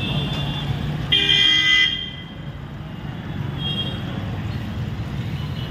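A vehicle horn honks once, a single steady note lasting just under a second, about a second in. Under it runs a steady low street rumble.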